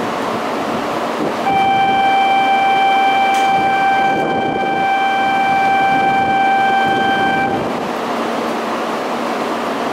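Door-closing warning tone of an E2 series Shinkansen: one steady high beep held for about six seconds, stopping as the doors shut before departure, over steady platform background noise.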